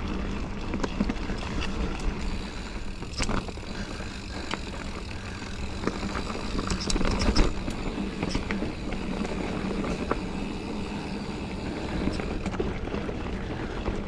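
Giant Fathom mountain bike rolling along a dirt trail: tyre noise with frequent knocks and rattles from the bike over the rough ground, and a sharper knock about seven seconds in.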